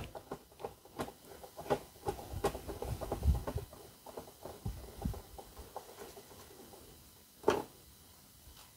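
Small scattered clicks, taps and scrapes of fingers handling a pan head screw and working it into an access hole in an MDF board, with one sharper knock about seven and a half seconds in.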